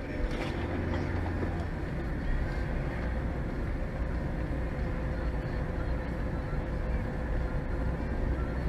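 Steady engine and tyre noise heard from inside a car driving along a snow-packed street, with a faint steady hum.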